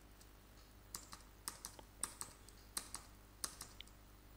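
Faint computer keyboard keystrokes: about a dozen irregular key clicks starting about a second in, as lines are deleted in a text editor.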